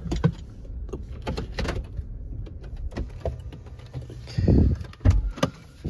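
A vehicle's engine running with a steady low rumble, with scattered knocks and clicks over it and a louder clunk about four and a half seconds in.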